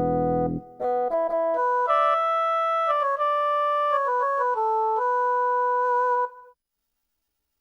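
Korg N364 synthesizer playing a preset demo: the end of one patch cuts off about half a second in, then a short keyboard phrase of a few notes at a time moves upward and settles, ending about six seconds in, followed by silence.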